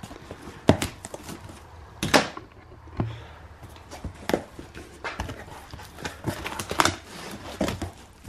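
Cardboard box being opened by hand: the flaps pulled apart and folded back and the crumpled kraft packing paper handled, a run of irregular rustles, scrapes and knocks, the loudest about two seconds in.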